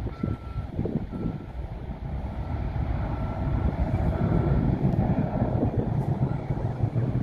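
Vehicle reversing alarm beeping about once a second, one steady high tone that fades out about two-thirds of the way through, over a loud low rumble of wind and engine noise.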